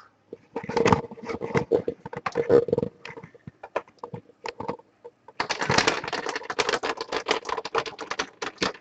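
A stack of trading cards being handled and counted off, a rapid run of papery flicks and clicks in two bursts, the second starting about five and a half seconds in.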